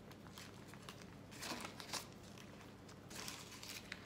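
Faint rustling and crinkling of baking paper as puff pastry is rolled up by hand on it, with a couple of brief louder rustles.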